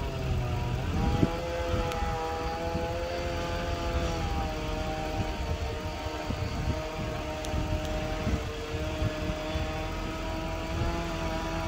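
Chainsaw running at steady high revs, its pitch dipping briefly about a second in and easing down slightly around four seconds, as when the saw is under load in a cut.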